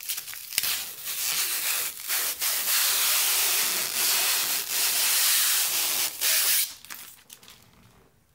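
Protective plastic film being peeled off a monitor's screen: a long, loud hissing rip with a few brief breaks, ending about seven seconds in.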